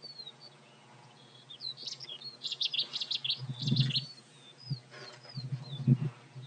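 Small birds chirping and twittering in quick, short rising and falling notes, busiest through the middle. A few low thumps break in, the loudest one near the end.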